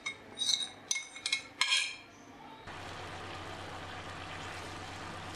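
Short clinks and scrapes of a spoon against a steel bowl as creamy marinated chicken is tipped into hot oil in a frying pan. About two and a half seconds in, this gives way to the steady sizzle of the chicken frying in oil, stirred with a spatula.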